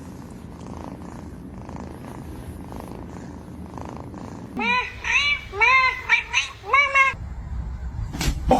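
A domestic cat purring, then a quick run of about six short meows, each rising and falling in pitch.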